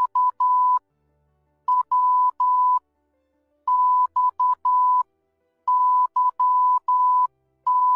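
Morse code sent as a single steady beep tone, keyed into short and long beeps (dots and dashes). The beeps come in groups of three or four, with pauses of about a second between groups.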